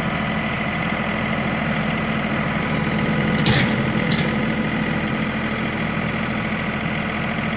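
John Deere tractor engine running steadily, with two short sharp noises about three and a half and four seconds in.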